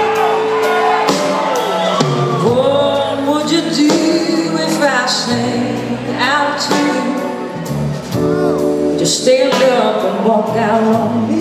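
Live rock and soul band playing, with drums, electric guitar and horns, and a woman's voice singing over the band.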